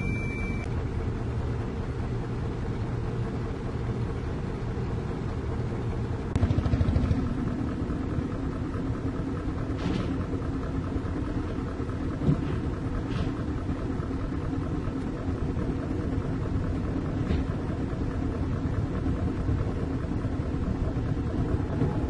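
Dump truck engine running with a steady low rumble. It gets louder about six seconds in, with a steady drone that carries on as the truck moves.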